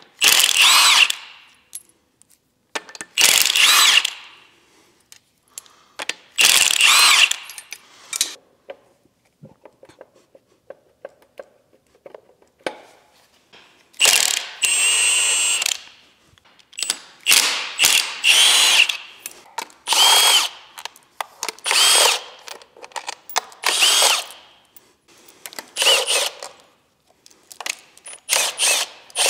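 Cordless impact wrench running bolts off the front of an Evo 8 engine in about a dozen short bursts of one to two seconds each, with one longer run about halfway through.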